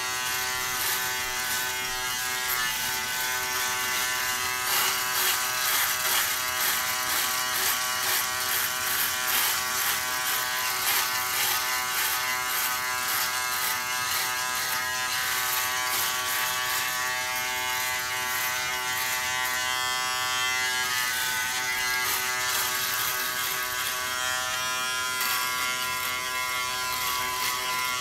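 Remington Wetech PF7580 electric foil shaver running as it is drawn over stubble on the neck. The motor hum holds steady while a scratchier cutting sound comes and goes with each pass, busiest in the first half.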